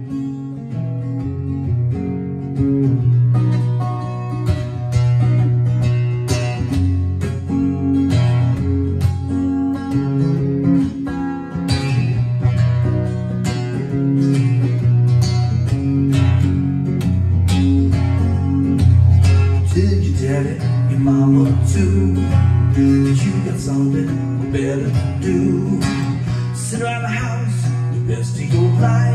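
Steel-string acoustic guitar strummed in a steady rhythm, with a man singing along at the microphone in the later part.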